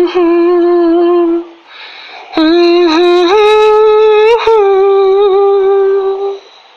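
A woman's voice humming a slow melody in long held notes: a short phrase, a brief pause, then a longer phrase with a few gentle rises in pitch.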